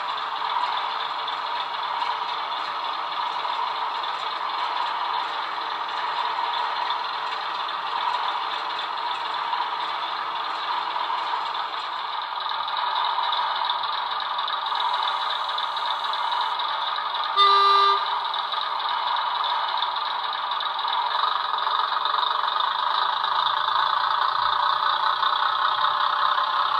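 Model railway sound decoder playing a Legomanbiffo diesel engine sound through the model's small speaker, running steadily as a diesel multiple unit model moves along the track. One short horn toot comes about two-thirds of the way through, and the sound grows a little louder near the end.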